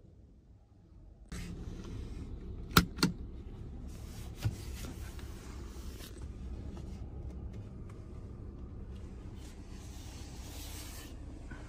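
Handling noise inside a car cabin: two sharp clicks close together about three seconds in and a weaker one a moment later, over a steady hiss that starts about a second in.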